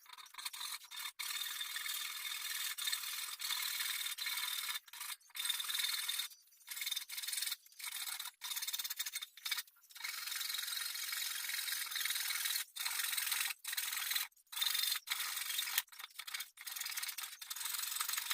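Rough rubbing or scraping strokes on a surface, in long runs broken by many short pauses.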